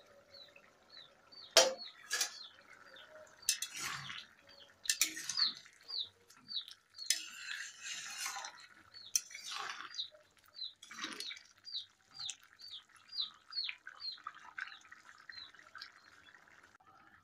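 A steel spatula clinking and scraping against an aluminium kadai as thick chickpea curry is stirred, with a sharp metal clank about one and a half seconds in as the lid comes off. A bird in the background repeats a short falling chirp about twice a second.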